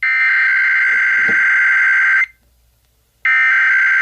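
Emergency Alert System SAME header data bursts, harsh buzzy digital screeches, coming from a radio. Two identical bursts of about two seconds each, a second apart, coding the start of an Idaho Required Monthly Test alert.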